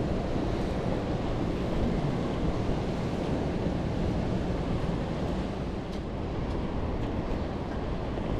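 Steady rushing of the flooded Ohio River's high water below the dam, mixed with wind on the microphone.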